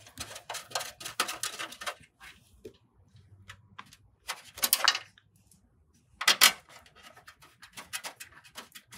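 Small metal thumbscrews being handled and hand-tightened into a PC case's hard drive sled: scattered clicks and scrapes of metal on metal, in clusters near the start, around the middle and a little past six seconds.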